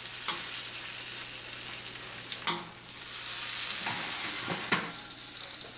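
Fresh Hatch green chilies sizzling with a steady hiss as they char on the top oven rack under the element. Metal tongs click against the rack three times as they are lifted off.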